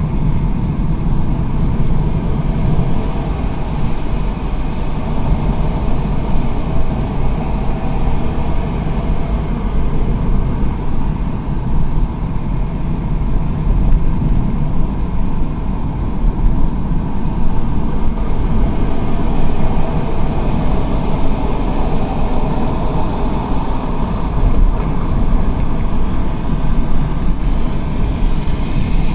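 Steady road and engine noise of a car driving at speed, heard from inside the cabin: a continuous low rumble of tyres and engine.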